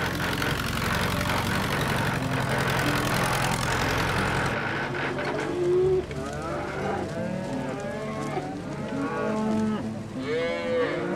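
Background music with steady low notes; about four and a half seconds in, cattle start mooing, many short overlapping calls over the continuing music.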